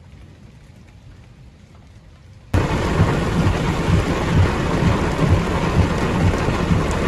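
Faint rain for the first two and a half seconds, then a sudden jump to heavy rain drumming loudly and steadily on a car's roof and windscreen, heard from inside the car.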